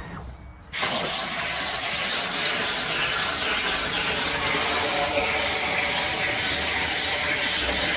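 A loud, steady hiss with no clear pitch or rhythm, cutting in suddenly under a second in.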